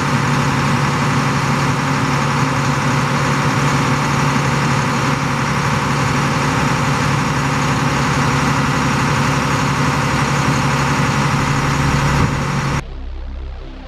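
International 4300 truck's diesel engine running at a steady speed. It cuts off abruptly near the end.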